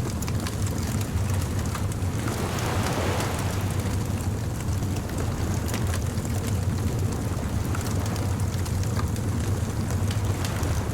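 Bonfire crackling with scattered small pops over a steady low rumble of surf. A wave washes in about two to three seconds in.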